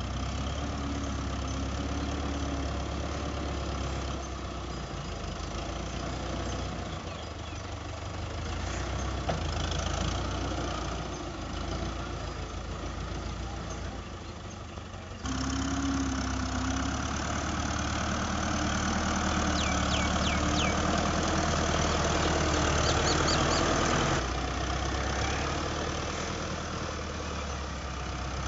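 Fiat 640 tractor's four-cylinder diesel engine running steadily as the tractor pushes and levels dirt with its front blade. About halfway through it suddenly gets louder for several seconds, then eases back.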